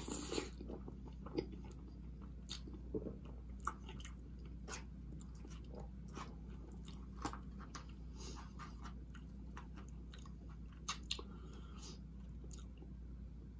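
Close-miked chewing and wet mouth sounds of a person eating poutine, with scattered sharp clicks as a plastic fork picks through the cardboard tray, over a low steady hum.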